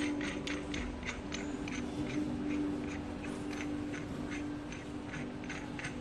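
The crimping head of a pneumatic perfume bottle crimping machine being turned by hand to unscrew it. It gives a steady run of sharp clicks, about three a second, over a low hum.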